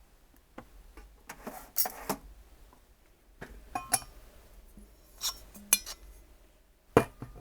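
Hard objects clattering and clinking as they are handled and set down, in several separate bursts with a brief ring after some, the sharpest knock near the end.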